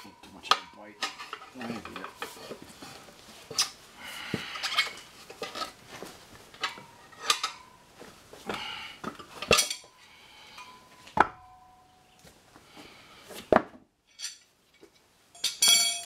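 Steel tire irons clinking, knocking and scraping against a spoked motorcycle wheel rim as the rear tire is levered off, in irregular metallic knocks, some ringing briefly. A brighter metallic clatter of the irons comes near the end.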